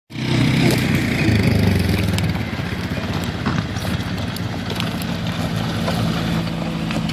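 Toyota Tacoma pickup's engine running as it drives across rough grassy ground, loudest about a second in, then settling to a steadier, lower engine note as the truck rolls up close.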